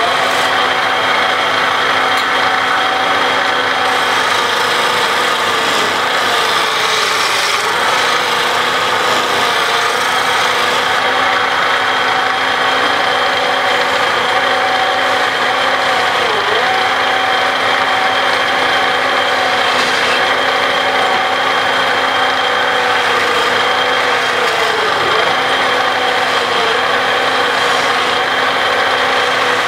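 Wood lathe running with a steady hum while a hand-held chisel scrapes and cuts the spinning wooden sofa leg with a rough rasping sound. The hum dips briefly in pitch a few times.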